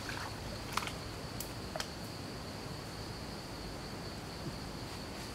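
Insects droning steadily at one high pitch, with a few sharp clicks and snaps in the first two seconds as brush and twigs are pulled aside by hand.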